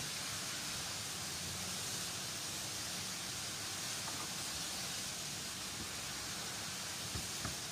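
Steady, even hiss of workshop background noise, with two light clicks near the end.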